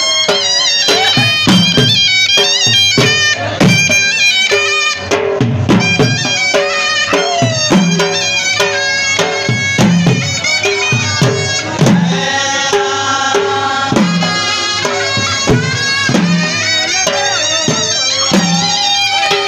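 Balochi lewa music: a surna, a loud double-reed shawm, plays a quick, ornamented melody over a large double-headed dhol drum beaten with sticks in a steady dance beat.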